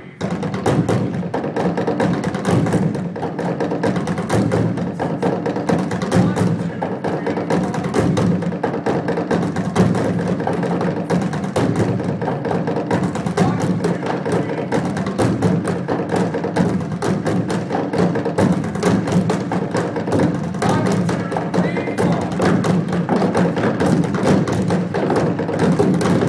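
Percussion ensemble drumming with sticks on upturned trash cans, a dense, continuous rhythm of sharp hollow strikes with no pause.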